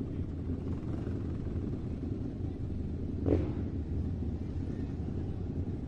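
Small battery-powered toy RC rock-crawler truck driving slowly over a dirt path: its electric drive motors and plastic gears give a steady low rumble. There is a brief sharper sound about three seconds in.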